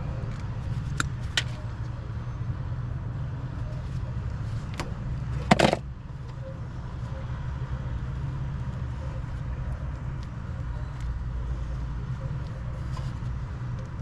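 Steady low machine rumble with a few light clicks of parts and wires being handled, and a short, loud clatter about five and a half seconds in.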